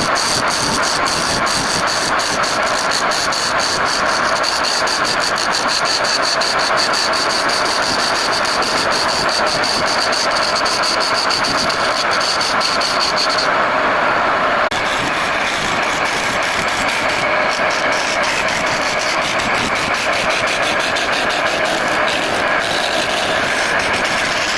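Wood lathe running, with a turning tool cutting the spinning wood: a steady loud machine noise with a rapid even ticking, about five ticks a second. A high whine over it stops about halfway through.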